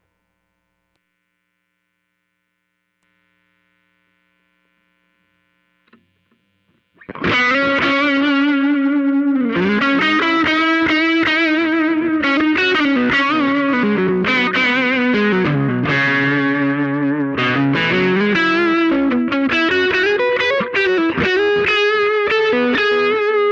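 Near silence with a small click, then, about a third of the way in, a distorted electric guitar starts playing sustained notes through a Nig AS1 amp simulator pedal used as a preamp, recorded straight into an audio interface.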